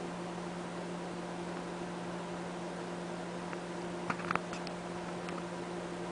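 Steady electrical hum over a background hiss, with a few faint, brief clicks about four seconds in.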